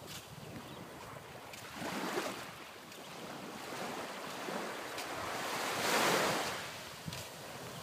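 Small waves lapping and washing up onto a sandy beach, a soft rush of surf that swells twice and is loudest about six seconds in.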